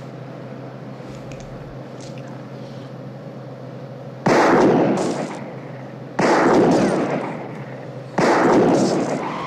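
Three loud revolver shots about two seconds apart, each with a sharp crack and a short echoing tail, fired inside a moving ambulance over the steady drone of its engine and road noise.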